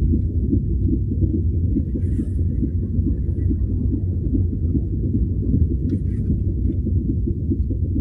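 2008 Hyundai Accent slowing to a stop at a crawl, heard from inside the car: a steady low rumble with a fast, uneven patter of quiet knocks from the rear. The owner cannot place the fault and suspects failing wheel hub bearings or a broken-off piece of brake pad.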